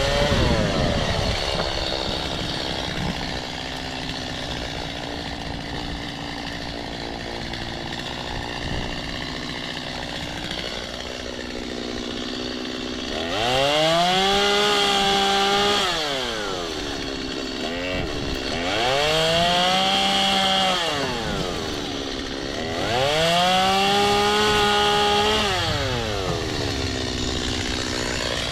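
Chainsaw engine running at a low idle, then opened up to full throttle three times, each rev held for two to three seconds before dropping back to idle.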